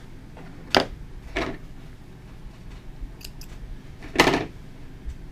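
A few short clicks and scrapes from handling the thread and tools while wrapping a rod guide, the loudest a slightly longer scrape about four seconds in.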